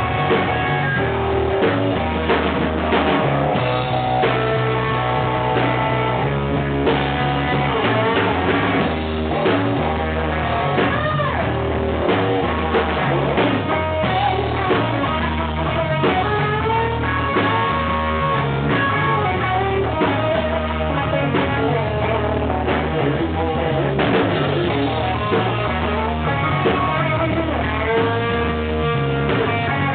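Small blues band playing live: electric guitar, bass guitar and drum kit, with sliding, bent guitar notes over a steady bass line and beat.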